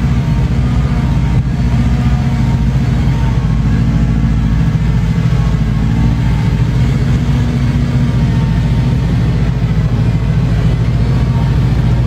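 Diesel engine of a heavy dump truck laden with gravel, running steadily under load as the truck crawls over loose gravel.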